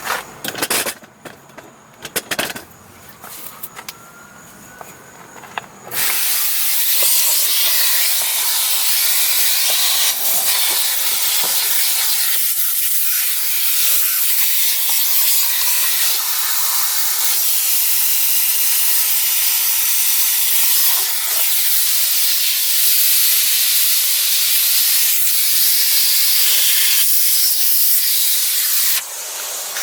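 Electrolux Ergospace canister vacuum cleaner, with a steady airy hiss of suction at the hose and nozzle that starts abruptly about six seconds in, after a few seconds of quieter clicks and knocks. It dips briefly near the end.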